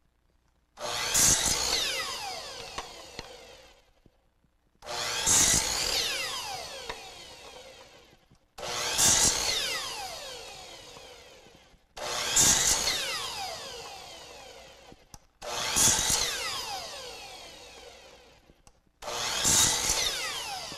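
Electric chop saw (miter saw) making six cuts through small wooden segments, about one every three and a half seconds. Each cut starts suddenly, and the blade then winds down with a falling whine over about three seconds.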